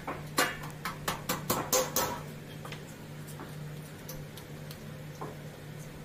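A hammer tapping a metal pin into a hinge on an aluminium door frame: about seven quick, sharp knocks in the first two seconds. After that come only a few faint ticks of handling.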